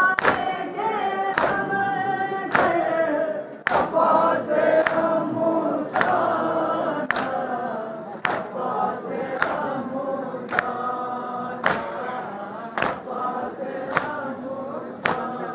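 Crowd of mourners chanting a nauha (Muharram lament) in chorus, punctuated by sharp strikes in unison about once a second: matam, the mourners beating their chests in time with the chant.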